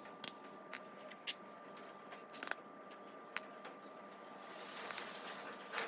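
A handful of small sharp clicks and taps as steel linear bearings and wooden carriage blocks are handled and fitted together, the loudest cluster about halfway through, over a faint steady high-pitched tone.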